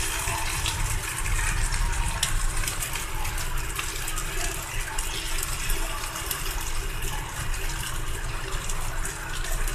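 Egg-and-flour batter sizzling in oil on a hot tawa: a steady hiss with fine crackling pops.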